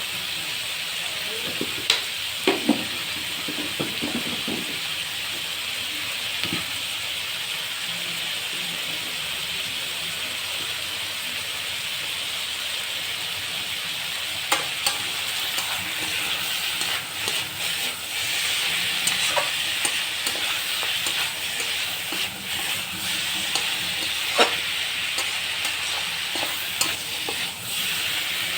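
Chicken curry sizzling steadily as it fries in a kadai, with a spatula stirring and scraping, and sharp knocks against the pan now and then.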